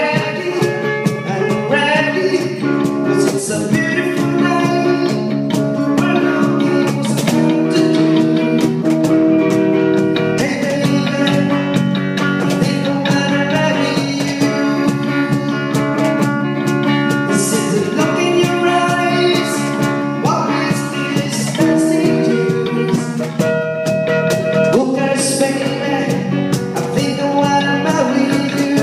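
Live band playing a song: a singer over guitar, with drum hits throughout.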